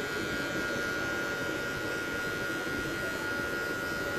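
Wahl hair clipper running with a steady buzz as it is worked through short hair at the side of the head, blending out a fade line.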